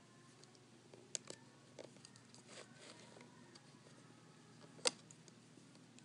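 Faint clicks and taps from a plastic Rainbow Loom and rubber bands being handled as the bands are hooked over the pegs. There is a soft rustle in the middle and a sharper single click about five seconds in.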